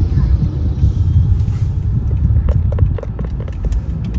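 Steady low road and engine rumble inside a moving car's cabin, with a quick run of light clicks about two and a half seconds in.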